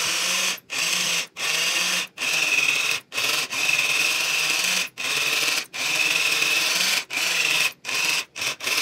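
Handheld electric whisk running in a bowl of brownie batter, a steady whir that cuts out briefly about once a second.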